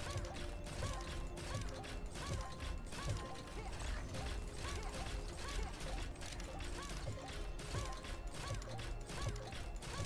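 Money Train 4 video slot's bonus-round sound effects: rapid mechanical-style clicking as the respins run, with short rising-and-falling chime tones repeating as symbols land.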